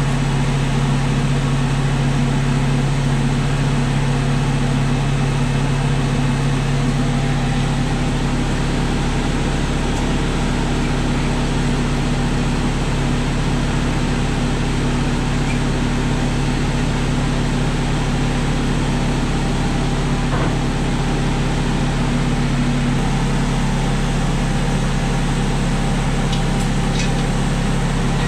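Steady mechanical drone of a kitchen fan: a loud low hum with a rushing hiss over it, unchanging throughout, and one higher hum tone dropping away about three-quarters of the way through.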